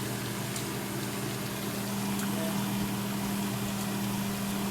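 Pots cooking on a kitchen stove: a steady hiss over a steady low hum.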